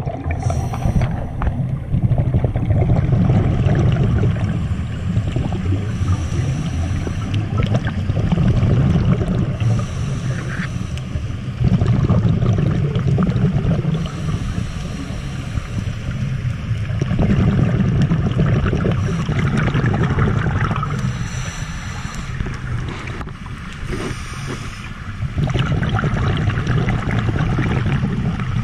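Exhaled bubbles from a scuba diver's regulator rumbling past an underwater camera, in swells of two to three seconds about every five seconds with quieter gaps between breaths.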